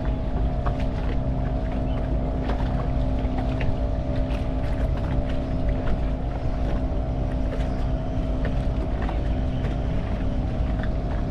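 Boat engine running steadily with an even low drone, with scattered light clicks on top.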